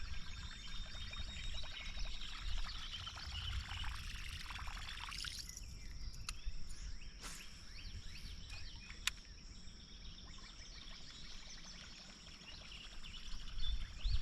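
Surface gurgle and churn of a buzzbait being reeled across open water, heard faintly over steady outdoor noise with a high steady hum, and a few sharp clicks in the middle.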